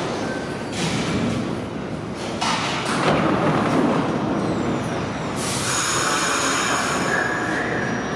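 R68 subway train coming to a stop at the platform, with its sliding doors opening about three seconds in, followed by a steady hiss with a high whine from the standing train.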